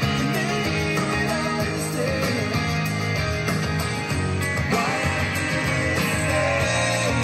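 A rock song with singing and guitar, played back through KLH 403A indoor/outdoor speakers at a steady, fairly loud level.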